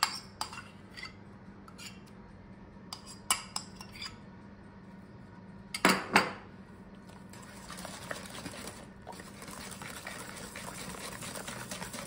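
Scattered clinks and knocks of a ceramic bowl and a wire whisk against a stainless steel mixing bowl, the loudest a pair of knocks about six seconds in. From about eight seconds a hand whisk beats rapidly around the steel bowl, a fast, steady scraping rattle that grows louder.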